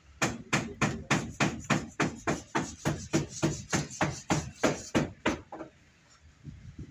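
A fast, even run of hammer blows, about three a second, some twenty strikes, then they stop near the end.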